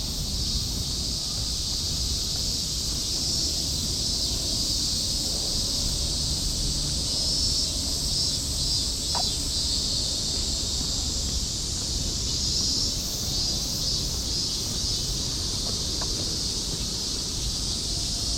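Summer cicadas droning in a steady, shimmering chorus, over a steady low rumble. Two faint brief chirps cut in, about nine seconds in and again near the end.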